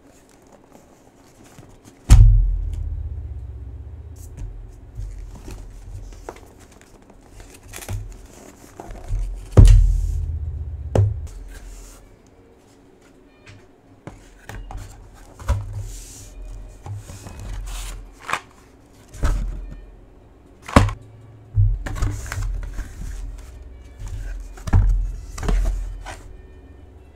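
Keyboard box being unpacked by hand: scattered knocks and thumps of cardboard packaging as the lid is lifted off, the loudest about two seconds in and again near ten seconds, over background music.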